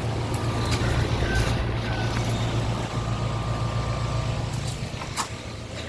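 American Standard heat pump outdoor units running, with a steady low compressor hum under the fan's air noise. A brief click comes about five seconds in.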